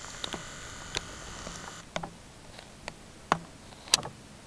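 Camcorder zoom motor whirring with a steady high whine that cuts off about two seconds in. Several sharp clicks and taps from handling the camera follow, the loudest two near the end.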